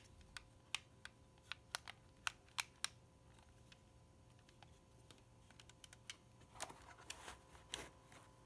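Plastic buttons on a toy-grade quadcopter transmitter clicking under the thumbs: about ten sharp clicks in the first three seconds, then a few fainter ones. A soft rustle of handling follows near the end.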